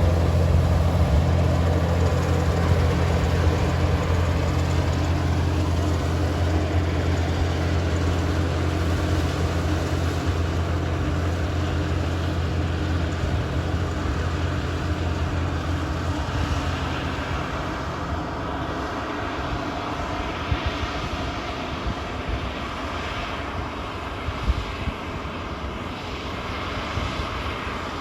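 Claas Dominator 98SL combine harvester running at work: a steady low diesel engine hum over the rushing noise of its machinery. The engine hum fades after about sixteen seconds, and the whole sound grows gradually quieter as the machine moves away.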